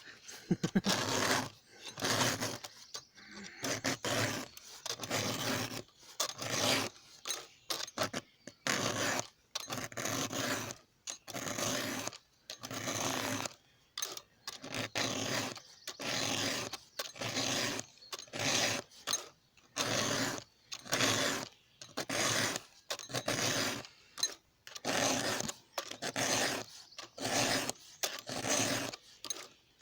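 Hand file rasping across the teeth of a chainsaw chain: a steady rhythm of file strokes, a little more than one a second, each a short scraping rasp.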